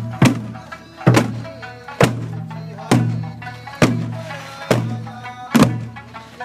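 Okinawan folk music with a heavy drum beat, a loud strike about once a second over sustained low pitched tones.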